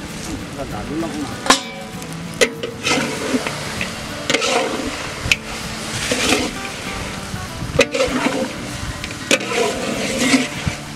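Long metal spatula stirring pork curry frying in a large metal pot: repeated scraping strokes every second or two over sizzling, with a few sharp clanks of metal on the pot.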